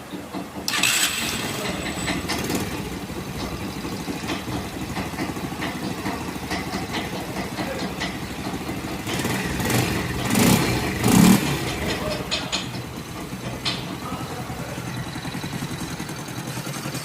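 Shineray Bravax motorcycle engine running with a rhythmic mechanical clatter, the strange noise it is being checked for. It picks up suddenly a little under a second in and is briefly revved twice about ten to eleven seconds in.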